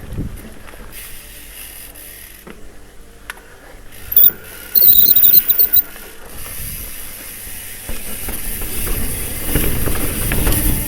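Trek Fuel EX mountain bike ridden over a rough trail, rattling and clattering, with a loud high-pitched squeal of the disc brakes in a short chirp and then a run of pulses about four to six seconds in. Low rumbling riding noise builds near the end.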